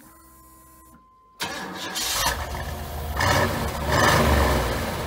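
Chevy Suburban's engine cold-starting at the tailpipe: it catches suddenly about a second and a half in, then runs with a low exhaust rumble that swells a few times before easing toward the end.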